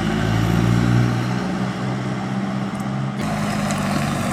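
Four-wheel-drive vehicle's engine running steadily while driving. The sound shifts abruptly about three seconds in.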